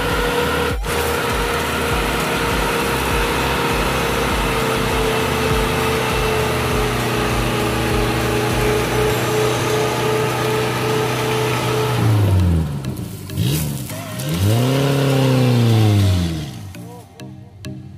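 Off-road 4x4 vehicle's engine running at a steady pitch, with a low rumble underneath, then revved up and back down twice near the end.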